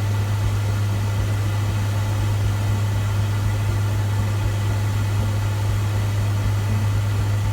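A steady, unchanging low engine drone with a rushing hiss over it.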